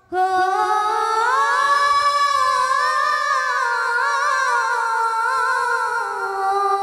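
A woman's voice holding one long unaccompanied sung note in an Odia kirtan. It glides up in pitch over the first two seconds, wavers with vibrato, and sinks a little near the end.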